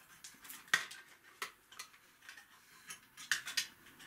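Light, irregular clicks and taps of hard plastic parts of a large Transformers figure being handled and hooked into place.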